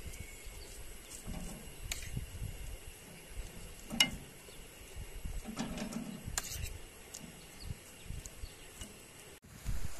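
Outdoor riverside ambience: a low gusty rumble of wind on the microphone and a faint steady high-pitched hum, broken by a few sharp clicks of a metal spoon against a frying pan, the loudest about four seconds in.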